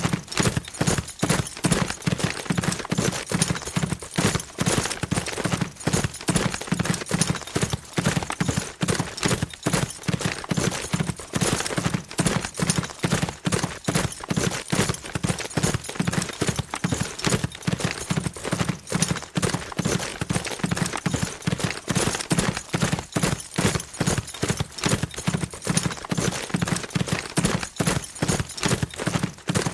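A horse galloping fast, its hooves striking the ground in a rapid, continuous drumming rhythm.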